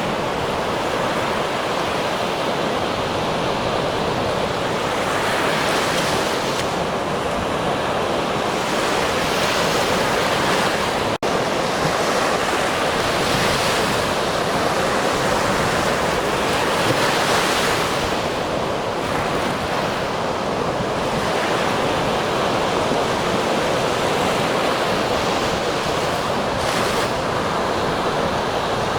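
Ocean surf: a continuous rushing wash of waves that swells and eases every few seconds, with a momentary dropout about a third of the way in.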